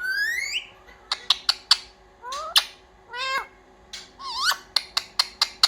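Indian ringneck parrot calling: a series of high rising whistled calls mixed with short, sharp chirps, ending in a quick run of chirps.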